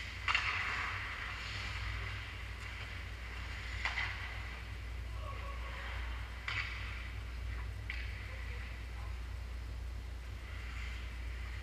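Ice hockey rink sounds: skates and sticks scraping and clacking on the ice over a steady low hum. The loudest is a sharp hit about a third of a second in, followed by about a second of scraping, with shorter sharp clacks around four, six and a half, and eight seconds in.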